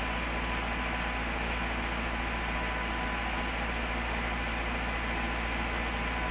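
Engine idling steadily, with a thin high hum over its low drone.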